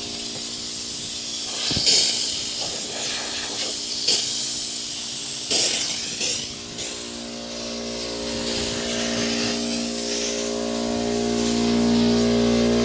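Compressed air hissing out of pop-up sprinkler heads, with a few louder gusts about 2, 4 and 6 seconds in: the lines are blowing mostly air and a little vapour, with the water nearly cleared. Under it a small air compressor runs with a steady hum that grows louder near the end.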